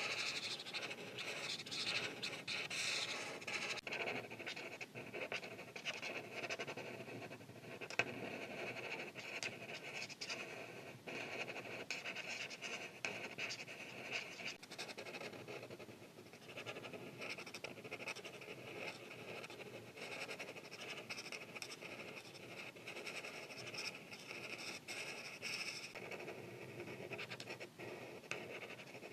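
Art marker tips scratching and rubbing across paper in continuous back-and-forth strokes as an illustration is colored in, with a sharp tick about eight seconds in.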